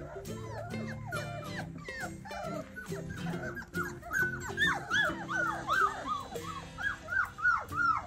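Four-week-old Bernedoodle puppies whimpering and yelping in a quick run of short high cries, two or three a second, louder in the second half, over background music.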